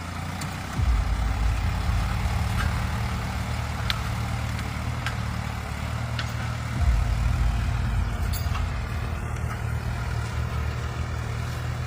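Tractor engine running under load while ploughing, a steady low drone that grows louder about a second in and again around seven seconds in.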